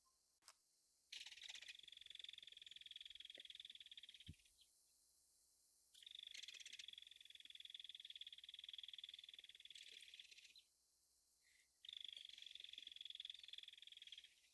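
Belted kingfisher giving its rattle call: three long runs of rapid, dry ticking notes, each lasting a few seconds, with short pauses between.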